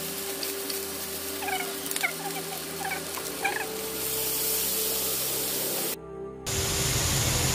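Quiet sizzling of shredded meat frying in a nonstick wok, a little louder from about four seconds in as soy sauce is poured into the hot pan. A few short bird chirps sound in the background in the first half.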